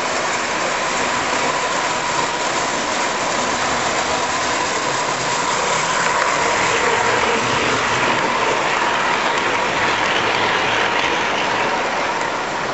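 Standard Gauge tinplate toy train running on three-rail track, its wheels rumbling and clicking over the rails. The sound grows louder about halfway through as the locomotive and cars pass close by, over a steady hall din.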